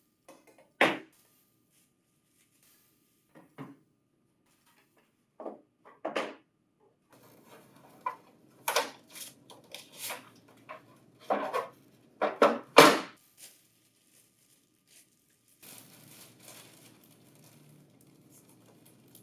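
Packaging and small plastic and metal parts being handled as printer-finisher accessories are unpacked: scattered knocks and clicks, a busy run of them in the middle, then a softer crinkling rustle near the end.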